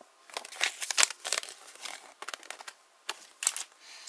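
Thin paper leaflet from a Kinder Surprise egg crinkling and rustling as it is handled, in a string of short crackles, busiest in the first second and a half and again about three and a half seconds in.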